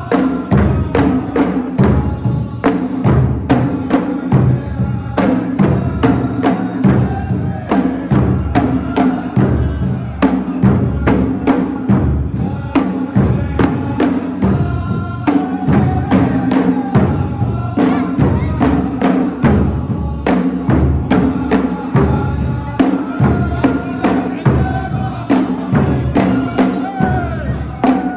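Gulf folk-troupe music: a fast, steady beat of drums with a group of voices singing over it.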